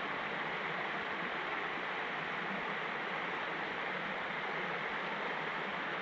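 Small creek flowing, a steady, even rush of water.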